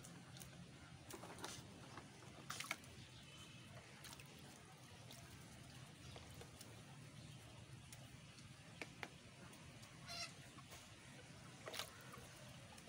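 Quiet courtyard with a low steady hum, broken by a couple of short calls from domestic geese, the clearest about ten seconds in, and a few sharp clicks or knocks, loudest about two and a half seconds in and again near the end.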